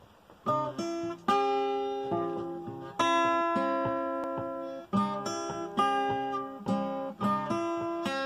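Acoustic guitar playing a slow folk song intro, chords and single notes plucked one after another and left to ring, beginning about half a second in.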